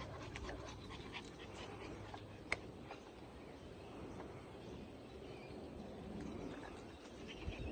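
Faint sounds of two small dogs being walked on leashes over a concrete path, with scattered light clicks and taps and one sharper click about two and a half seconds in.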